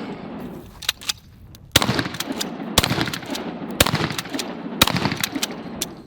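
Pump-action 12-gauge shotgun fired four times, about a second apart, each shot loud and echoing. Lighter clicks come between the shots as the pump is worked.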